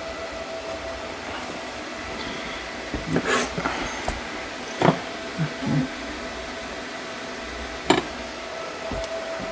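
A steady machine hum with a faint steady whine, broken by a few short knocks and clicks about three seconds in, near the middle, and near the end.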